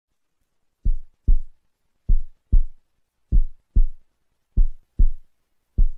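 Heartbeat sound effect: short low thumps in lub-dub pairs, about half a second apart, repeating steadily about every 1.25 seconds.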